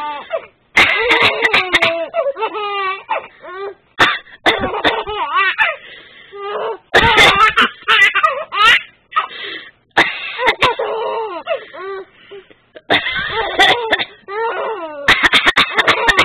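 A woman fake-coughing in short bursts, each answered by a baby's giggling laughter; the cough-then-laugh cycle repeats about six times.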